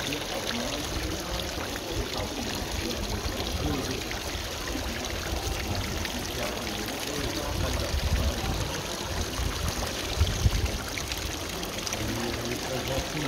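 Water pouring from the spouts of a bronze fountain and splashing steadily into its basin.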